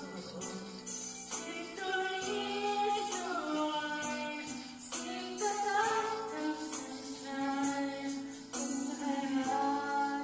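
A person singing into a handheld microphone, holding long notes with a wavering vibrato, over a backing track with a light, regular percussion beat.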